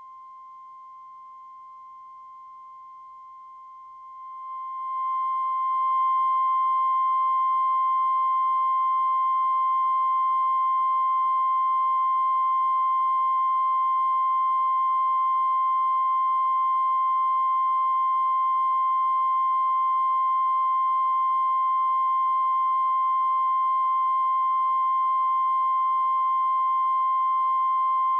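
Steady 1 kHz line-up test tone that goes with broadcast colour bars, a single unchanging beep-like pitch. It grows louder between about four and six seconds in, then holds level.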